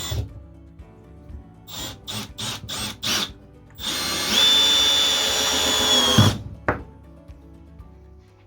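Milwaukee M18 cordless drill with its clutch set to 5: a few short trigger blips, then a steady run of about two and a half seconds with a high whine, winding down at the end.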